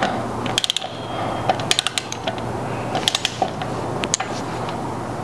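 Ratchet wrench clicking in short runs, a few clusters a second or so apart, as the steel brake disc rotor bolts on a motorcycle front wheel are run down to snug one after another.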